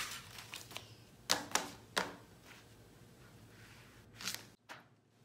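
Sheets of paper rustling as a stack is gathered on a tabletop, with a few sharp knocks as the stack is tapped on the table to square it.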